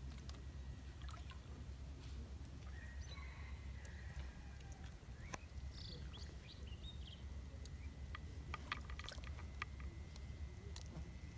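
Faint outdoor ambience: a steady low rumble with scattered small clicks and drips, and a few short bird-like chirps in the middle.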